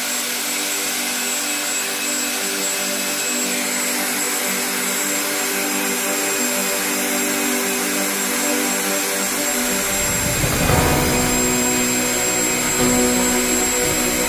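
Kenwood electric meat grinder running steadily while grinding raw meat, with a constant high whine over the motor's hum. About ten seconds in, a lower rumbling joins it.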